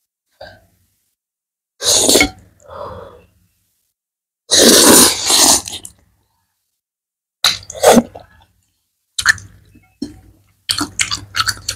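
Loud slurps of black noodles sucked into the mouth from chopsticks. The longest slurp is about halfway through, and near the end comes a quick run of short mouth noises from chewing.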